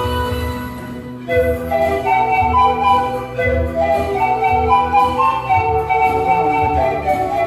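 Pan flute ensemble playing a melody in several-part harmony over a low, regular bass beat. The music thins briefly about a second in, then the melody comes back louder.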